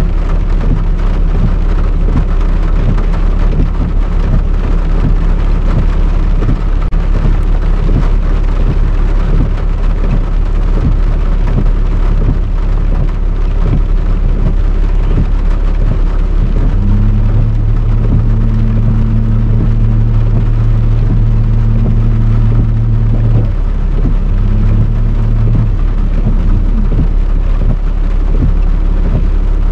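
Steady heavy rain with a low rumble underneath. A little past halfway a low steady hum comes in for several seconds, stops, then sounds again briefly.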